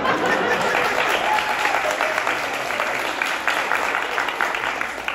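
Audience applauding, a dense round of clapping that thins out near the end.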